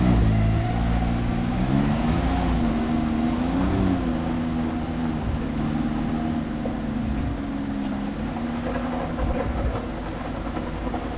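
Can-Am Maverick X3's three-cylinder turbocharged engine running while the machine is driven. Its pitch rises and dips a couple of times in the first four seconds, then holds steady and grows slightly quieter near the end.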